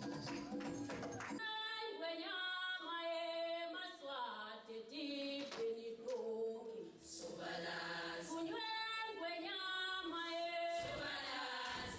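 A group of women singing together unaccompanied, a traditional Swazi song. A few knocks sound at the start, and the voices come in about a second and a half in.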